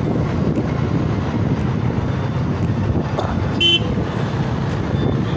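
Road and traffic noise from a moving car, a steady low rumble, with a short car horn toot a little past the middle.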